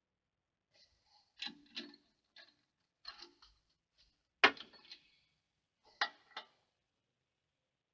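Scattered metal clicks and clinks from a T-handle chuck key working a woodturning lathe's scroll chuck. The loudest is a sharp knock about four and a half seconds in, with another about six seconds in.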